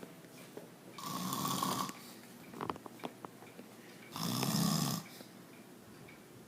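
An elderly man snoring in his sleep: two loud, rough snores about three seconds apart, with a few faint clicks in between.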